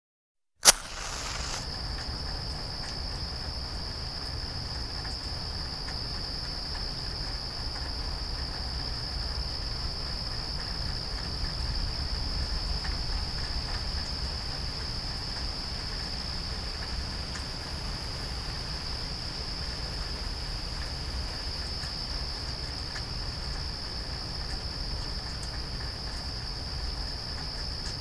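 A chorus of insects calling in one steady high-pitched drone over a low rumble, after a sharp click just under a second in.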